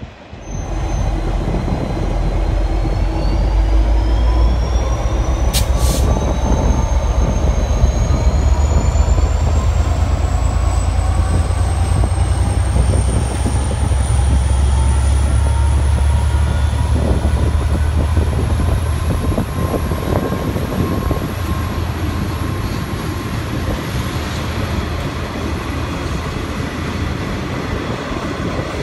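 V/Line N class diesel-electric locomotive passing close by with its N type carriages: a deep, loud engine rumble that eases after about eighteen seconds as the carriages roll past. Over it a high whine rises steadily in pitch. A single sharp click comes about six seconds in.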